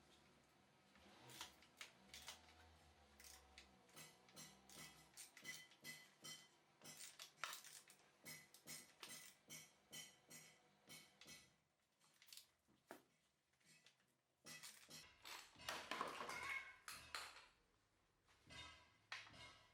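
Small metal parts and hand tools clinking and knocking in a quick, uneven series of light clicks, some with a short metallic ring, with a louder, noisier scraping stretch about three-quarters of the way through.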